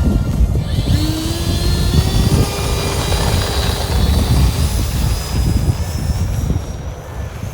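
Model jet's electric ducted fan whining, coming in about a second in with a slight rise in pitch and then holding steady, over a low rumble of wind on the microphone; the whine fades near the end.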